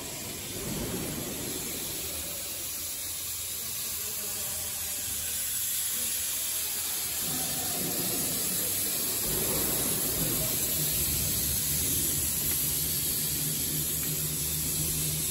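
Steady, high hiss of workshop background noise, with a low hum joining about halfway through.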